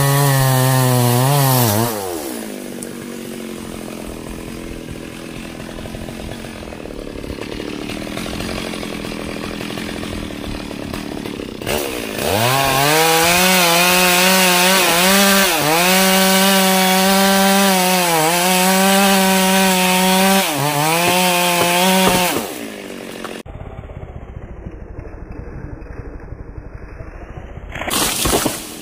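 Stihl MS 382 two-stroke chainsaw working a mahogany branch. It drops from full throttle to idle about two seconds in and idles for roughly ten seconds. It then revs up and runs at full throttle, its pitch dipping several times as the chain bites into the wood, before falling back to idle; it revs briefly again near the end.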